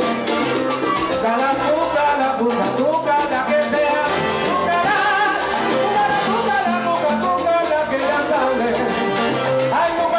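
Live salsa band playing, with a male vocalist singing into a microphone over the band's percussion and instruments.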